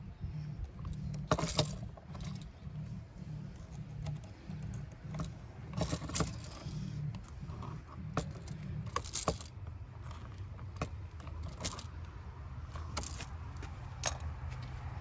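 Scattered small metallic clicks and clinks of hand tools, such as pliers, working electrical wires and wire nuts, over a steady low rumble.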